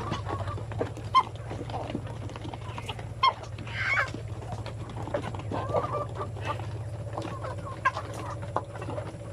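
A flock of chickens clucking and calling, with a few short sharp clicks among the calls, over a steady low hum.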